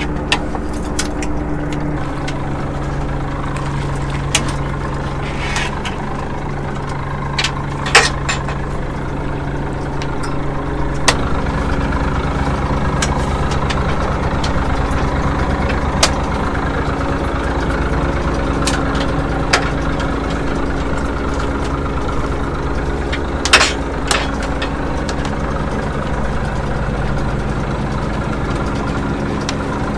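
Fishing boat's engine running steadily, its hum shifting in pitch a couple of times, with a handful of sharp knocks and clanks from the deck gear.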